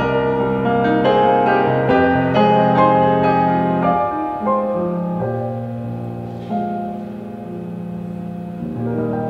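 Background piano music: a melody of struck notes over long held low notes, growing somewhat quieter in the second half.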